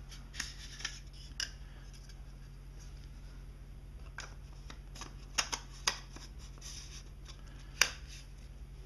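Small hard-plastic clicks and rubs from handling a Sigma 70-200mm F2.8 telephoto lens as its front cap comes off and its hood is fitted on the front of the lens. There are about a dozen short clicks, with a cluster in the middle and the sharpest single click near the end.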